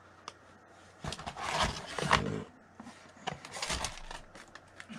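Rustling and crinkling of a plastic blister pack being dug out of a box and handled, with a few sharp clicks. It comes in two spells, one about a second in and a shorter one past the three-second mark.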